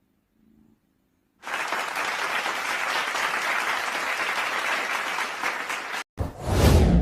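Applause that starts suddenly about a second and a half in and cuts off abruptly near the end, followed at once by a loud, deep boom.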